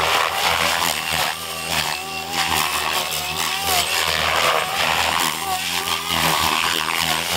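Electric RC helicopter (Goblin Raw 700 with an Xnova motor) flying aerobatics: a steady motor and drivetrain whine over the whoosh of the main rotor blades, the pitch wavering up and down as the load changes.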